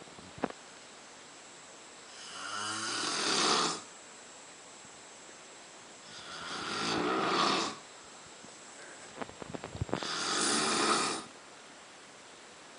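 An animal snoring: three long snores about four seconds apart, each growing louder and then cutting off sharply. A few light clicks come just before the third snore.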